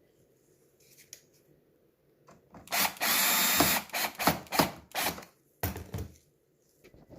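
Cordless electric screwdriver driving a screw into a coffee machine's casing: one run of about a second, then several short bursts on the trigger as the screw seats.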